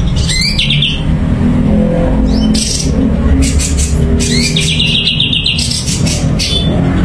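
Cucak cungko songbird singing: two bursts of rapid chattering trill, each opening with a rising note, about half a second in and again around four and a half seconds, over a steady low rumble.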